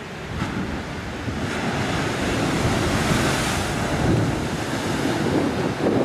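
Ocean waves breaking on a rock platform and white water rushing across it, with wind buffeting the microphone. The surf grows louder over the first couple of seconds and then stays loud.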